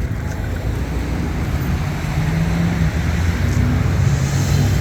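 Road traffic passing: a steady rush of engines and tyres with wind buffeting the microphone. A low engine hum grows louder about two seconds in.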